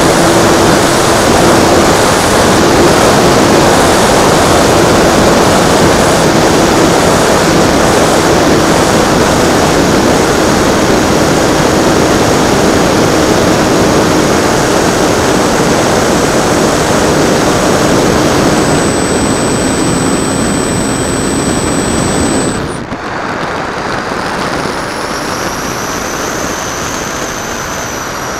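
Electric motor and propeller of a Kunai warmliner glider running at full power through the climb, heard from a camera on the plane with heavy air rush over the microphone. About 23 s in the motor cuts and the sound drops to a quieter rush of air as it glides with the propeller folded.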